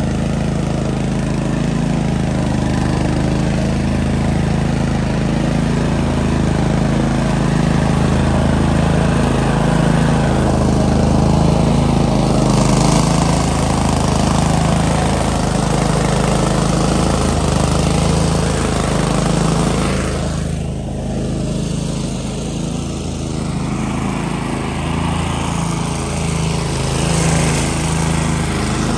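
DR Field and Brush walk-behind mower's engine running steadily, easing slightly for a moment about twenty seconds in.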